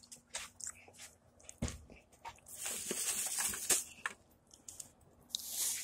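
Paper crinkling and rustling in a hand, in two short spells, among scattered light clicks and taps.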